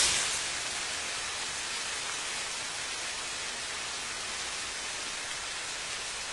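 Fire sprinklers discharging: a steady hiss of water spraying and falling like heavy rain.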